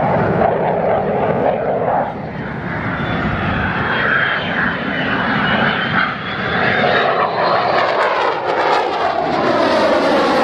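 F-22 Raptor's twin Pratt & Whitney F119 turbofans in a display pass, loud steady jet noise with a thin high whine rising and falling midway. Toward the end, with the afterburner lit, the noise takes on a swirling, phasing sweep as the jet comes closer.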